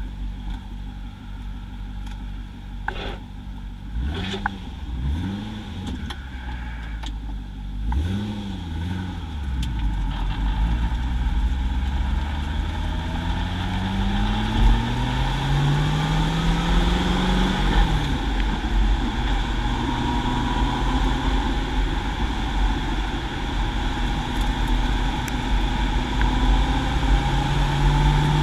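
Chevrolet C6 Corvette small-block V8 through a Magnaflow exhaust, heard up close between the tailpipes: it idles, is blipped in a few quick revs, then pulls away with the pitch climbing, dropping at a gear change, and climbing again near the end.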